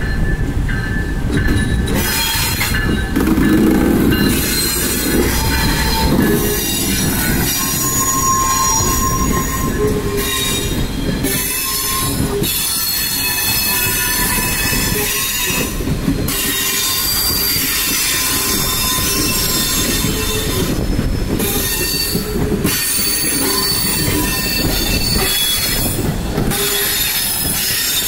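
Wheels of a VIA Rail Renaissance passenger train squealing as the coaches roll slowly past, several high steady tones over a low rumble, with clicks and clatter from the wheels on the track.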